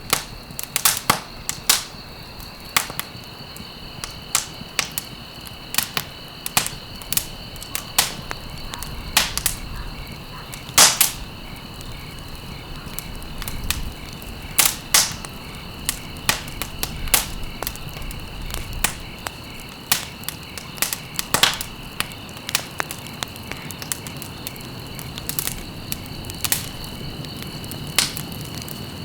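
Wood fire crackling, with irregular sharp pops and snaps, one of the loudest about eleven seconds in. A steady high-pitched trill runs underneath.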